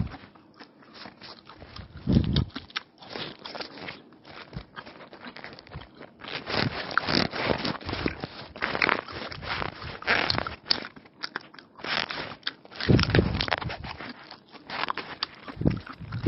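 Close-miked eating of egg rolls: the paper wrapper crinkling in the hands, then bites into the roll and chewing, a run of crackly clicks with a few dull thumps.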